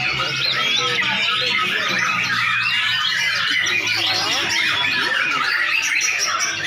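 Many white-rumped shamas (murai batu) singing at once in a dense, unbroken chorus of fast, varied whistles and chirps, with a faint steady low hum underneath.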